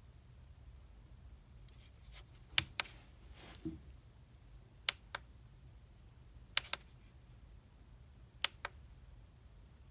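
Sharp clicks in pairs, four pairs about two seconds apart, over a faint steady low hum.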